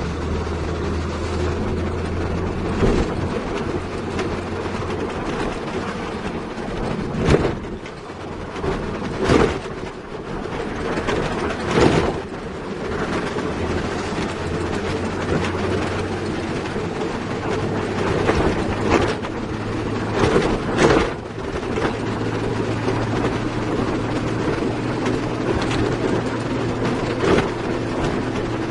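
Heavy diesel construction machinery running steadily, with loud metallic clanks every few seconds.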